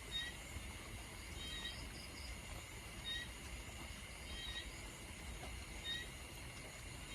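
Steady rain hiss, with a small animal's short high chirp repeating regularly about every one and a half seconds.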